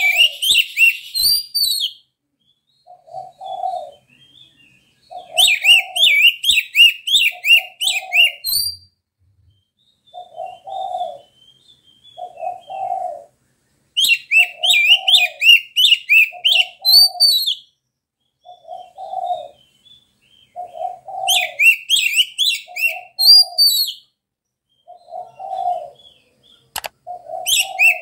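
Oriental magpie-robin (kacer) singing in loud bursts of rapid, high, varied chirps, each a few seconds long, several times over. Underneath, a dove coos steadily, a short low call about every one and a half seconds.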